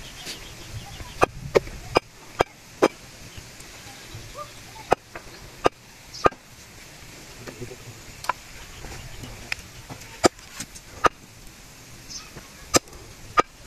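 Large knife chopping raw chicken on a wooden block: sharp single chops at uneven intervals, a quick run of about five just after a second in, then one every second or so.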